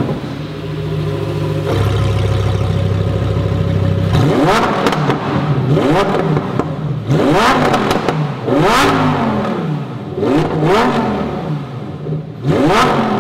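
Lamborghini Huracán Performante's 5.2-litre V10 on its factory exhaust. It idles steadily just after starting, then from about four seconds in it is revved in a series of about five throttle blips, each climbing and falling back.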